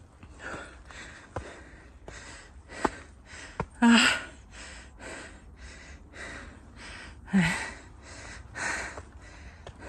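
A hiker breathing hard while climbing stone steps, short rasping breaths coming about once or twice a second, with two louder gasps about four seconds and seven seconds in. A few sharp taps of footsteps on the steps.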